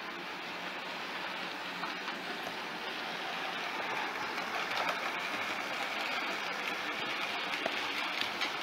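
OO gauge model trains running on the layout's track: a steady rattle of wheels on rail, with a few faint clicks.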